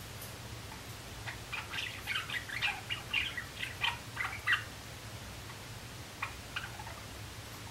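Young male Java sparrow practising its song: a quick run of short chirping and clicking notes lasting about three seconds, then a few more notes near the end.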